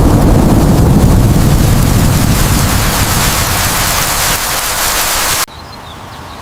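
Loud steady rushing noise that cuts off suddenly about five and a half seconds in, leaving a much quieter background.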